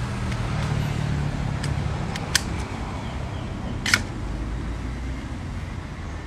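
Low engine hum of a passing motor vehicle, fading after about two and a half seconds. Two sharp clicks come over it, the second louder, about four seconds in.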